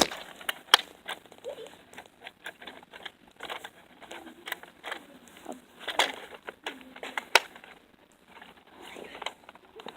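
Scattered plastic clicks and rattles of a Nerf Zombie blaster being handled and worked to clear a jammed dart, with the sharpest clicks about a second in and again near seven and a half seconds.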